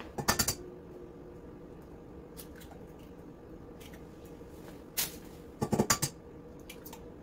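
Two eggs cracked against a stainless steel mixing bowl: a quick cluster of sharp taps just after the start, and another round of taps and cracks about five to six seconds in.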